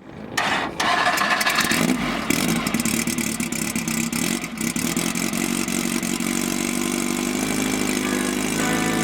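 Off-road race vehicle's engine running, with clattering in the first second, then a steady engine note that climbs slightly toward the end.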